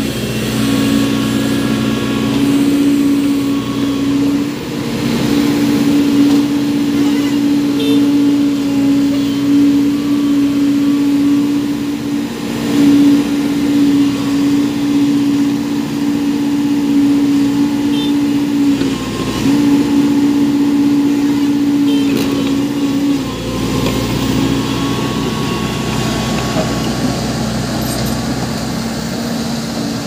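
Diesel engines of a Volvo EC210D crawler excavator and a loaded Tata dump truck running hard together as the excavator's bucket pushes the truck up a steep dirt slope it cannot climb alone. A steady engine drone that breaks off about 23 seconds in, giving way to a lower rumble.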